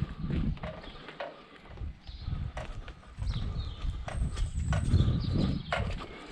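Irregular knocks and clatter of hard scrap items being handled, over a low rumble.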